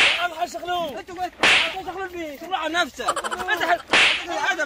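Men yelling and crying out in a scuffle, broken by three short, sharp hits: one at the start, one about a second and a half in, and one near the end.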